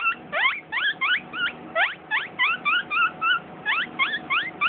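A man imitating a guinea pig with his mouth, squeezing one side of his closed mouth with his cheeks pulled back. It makes a rapid run of short, high squeaks, about four a second, each a quick rising or wavering note.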